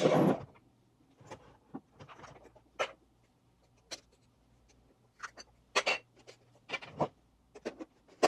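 Scattered clicks and light knocks of camera gear being handled as a 24-70 mm lens is fitted onto a Nikon Z8 camera body.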